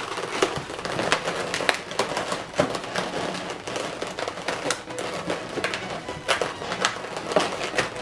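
Inflated latex modelling balloons being twisted and rubbed together by hand, giving irregular crackles and rubbing noises.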